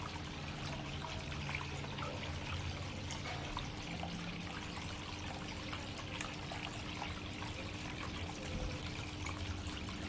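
Water trickling and splashing down the tiers of a six-tier polyresin rock-style water fountain: a steady run of small splashes as the streams fall from basin to basin, with a faint steady hum underneath.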